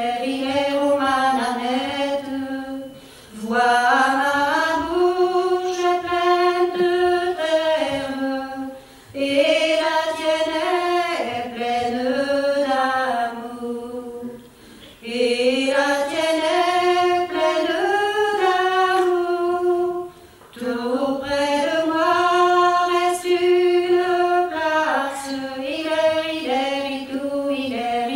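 Unaccompanied singing of a traditional song: a single melody line sung in phrases of about three to six seconds, with short breaks for breath between them.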